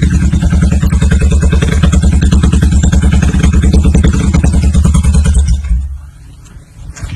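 Yamaha SR400's single-cylinder engine through a full trumpet-muffler exhaust, running with a loud, even thumping as the bike pulls in and stops. The engine cuts off about six seconds in.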